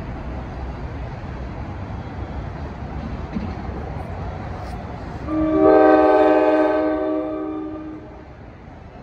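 A train horn sounds one long blast of about three seconds, a chord of several steady tones, starting a little past halfway and fading away. A low rumble of train noise runs underneath.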